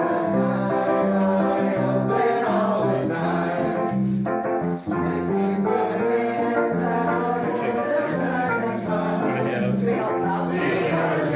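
A small group of men and women singing a song together into microphones, accompanied by an electronic keyboard playing held bass notes in a steady pattern.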